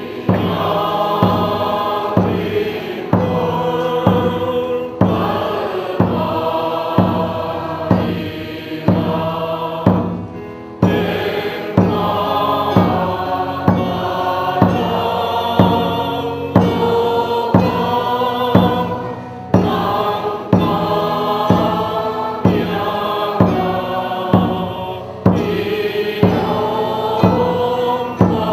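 A church congregation singing a hymn together in parts, over a steady beat of about one stroke a second.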